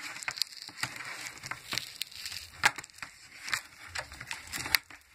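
Paper and plastic calculator packaging crackling and crinkling as it is handled and pulled apart by hand, in irregular sharp crackles.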